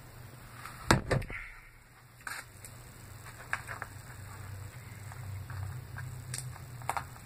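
Knocks and clicks of things being handled: a loud double knock about a second in, then scattered light clicks, over a low steady hum.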